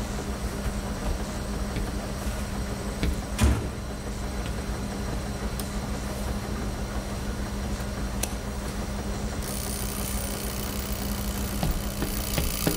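Steady low mechanical hum of laundromat washing machines, with a few faint clicks and one sharper knock about three and a half seconds in. The hum cuts off abruptly at the very end.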